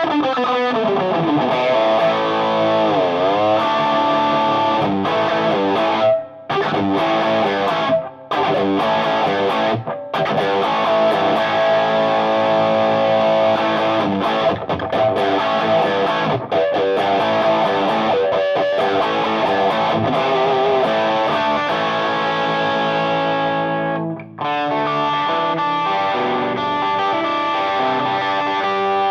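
Electric guitar (PRS S2 Custom 24) played through a Ramble FX Marvel Drive overdrive pedal into a Marshall JVM amp's clean channel: overdriven riffs and lead lines, with a wavering bent note about three seconds in. The playing stops briefly a few times, and held notes ring out near the end.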